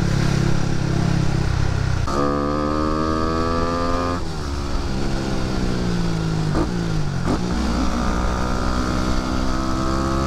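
Motorcycle engine running under way. Its pitch jumps up about two seconds in, falls steadily over the next few seconds, then climbs slowly again toward the end.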